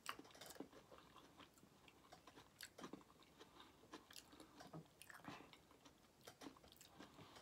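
Faint close-up chewing of a mouthful of potato salad, with soft wet mouth clicks scattered a few times a second.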